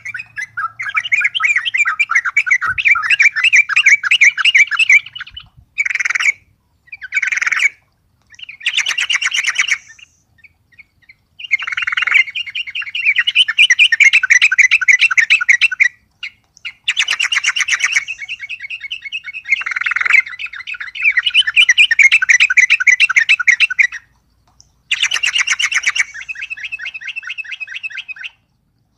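Yellow-vented bulbul (trucuk) singing hard: long runs of rapid, bubbly chattering notes in phrases from under a second to several seconds long, with short pauses between. This is the heated, full song it gives when provoked by a rival.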